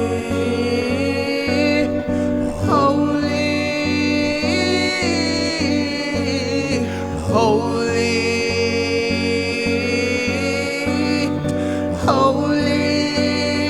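Slow, soaking-style worship music: held instrumental chords with a singing voice that swells and glides up and down a few times.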